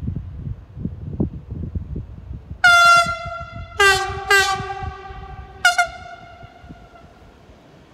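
Siemens Vectron electric locomotive horn sounding four blasts. The first, about two and a half seconds in, is the longest. Two short blasts follow close together about a second later, with a lower note added, and a last short blast comes near six seconds. Each blast dies away slowly afterwards.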